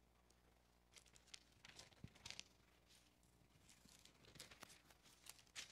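Faint rustling and crinkling of thin Bible pages being turned, a few soft crackles scattered through near silence.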